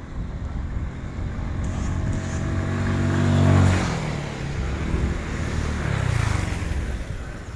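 A motor vehicle engine passes close by, getting louder until about three and a half seconds in, then dropping in pitch as it moves away. A second engine swell comes around six seconds in.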